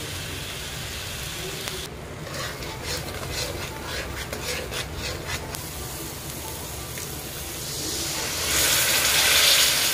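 Steel spoon stirring and scraping masala paste frying in oil in a kadhai, a run of short scraping strokes. Near the end, water poured into the hot pan sets off a loud burst of sizzling.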